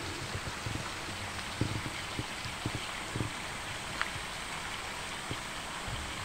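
Steady rush of running water, with a few soft low thumps.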